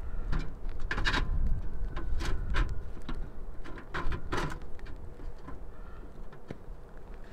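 Wind gusting on the microphone, easing off over the seconds, with scattered rustles and clicks from gloved hands handling a small steel wood stove.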